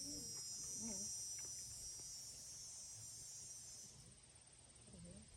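Insects trilling in a steady high-pitched chorus that cuts off suddenly about four seconds in, leaving one thin high note trilling on.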